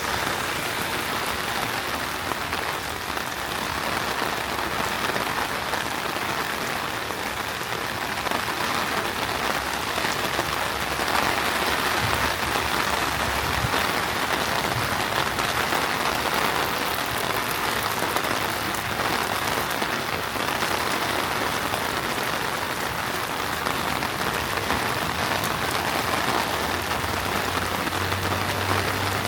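Heavy rain pouring down and splashing on the pavement, a dense, steady hiss that grows a little louder partway through.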